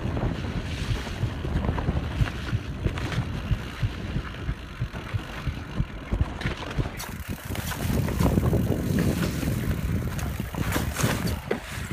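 Canyon Spectral enduro mountain bike ridden fast downhill on a dirt trail, picked up by a phone taped to the rider's chest: wind buffets the microphone over the rumble of knobby tyres, with many small clicks and knocks from the chain and frame over rough ground, thickest near the end.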